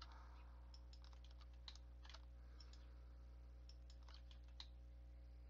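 Faint, irregular clicks of a computer mouse and keyboard as vertices are selected in 3D modelling software, over a steady low electrical hum.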